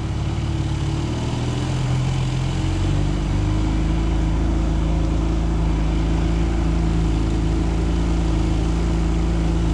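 Outboard motor of a small aluminium bass boat running underway, its pitch and loudness rising a little about two to three seconds in, then holding steady.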